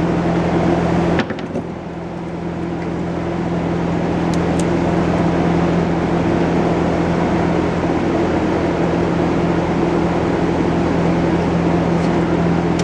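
Steady machine hum, a motor or engine running at a constant pitch, with a brief dip about a second in.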